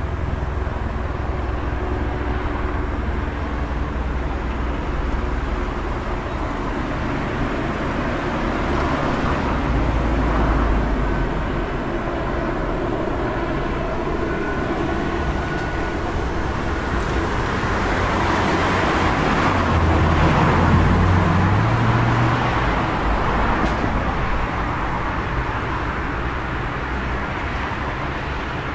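City road traffic: a steady hum of vehicles, with one passing vehicle swelling up about a third of the way in and a louder one about two-thirds in.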